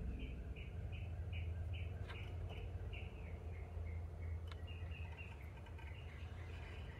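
A bird chirping, a string of short repeated notes at about two to three a second, then a more broken run later on, over a steady low rumble. Two small sharp clicks, about two seconds and four and a half seconds in, come from a metal battery terminal clamp being handled.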